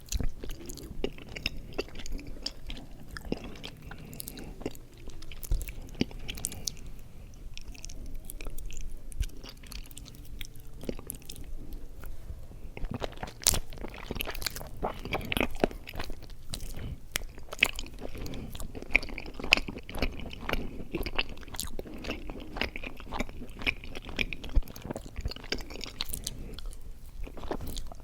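Close-miked chewing of mochi ice cream: soft, sticky mouth sounds with many small wet clicks and smacks, irregular and continuous.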